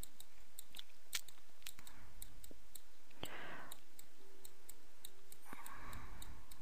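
Faint computer mouse clicks, scattered at irregular intervals over a steady low hiss.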